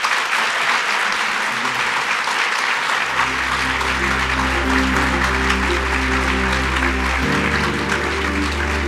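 Audience applauding. Instrumental music with sustained notes and a low bass line comes in about three seconds in and changes chord a little after seven seconds.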